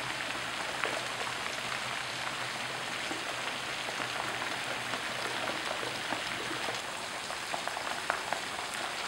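Flash-flood water rushing down a paved street with a steady hiss, and scattered sharp clicks of cobbles and rocks knocked along the road by the flow ("rocks popping down the road"), more of them near the end.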